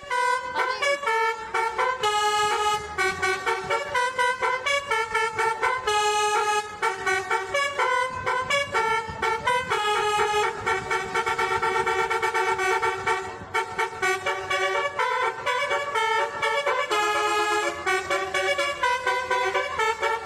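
Basuri (telolet) musical horn on an Indonesian bus playing a fast tune of held, sharp notes that change pitch every fraction of a second, running on almost without a break.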